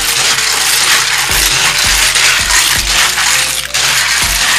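Snails being scrubbed by hand in water in a stainless steel bowl: a dense clatter of shells scraping and clinking against each other, with a few dull knocks against the bowl.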